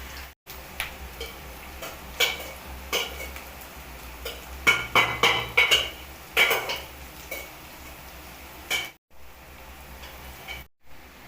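Metal utensils clinking and scraping against a pot or pan during cooking: a run of sharp clacks, busiest in the middle.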